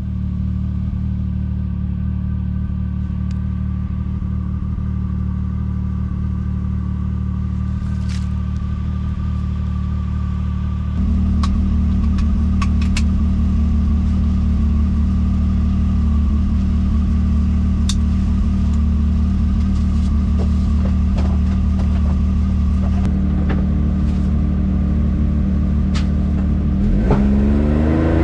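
Motor vehicle engine running steadily. It steps up in level about eleven seconds in, shifts again around twenty-three seconds, and then revs with a rising pitch near the end. A few faint clicks sound over it.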